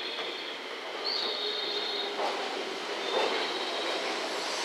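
JR West 227 series electric train approaching around a curve, its wheels squealing in high steady tones that come and go over the running noise, with a couple of knocks about two and three seconds in.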